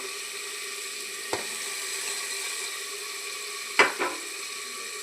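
Masala frying in hot oil in a pressure cooker, a steady sizzle as tomatoes go in. A few sharp knocks of the stirring spoon against the pot, the loudest near the end.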